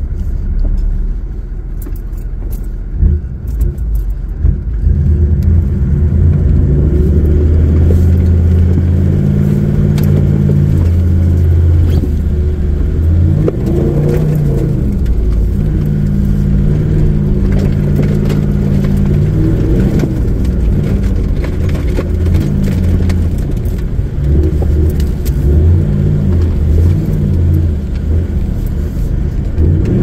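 A 4WD's engine pulling through a muddy track, its pitch rising and falling several times as the driver works the throttle, heard from inside the cab. A few sharp knocks in the first few seconds.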